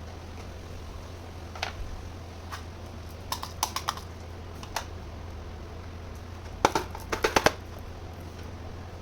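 Small hard plastic toy kitchen pieces clicking and tapping as they are handled. The clicks come singly and in quick clusters, with the loudest run of five or six clicks a little past the middle, over a steady low hum.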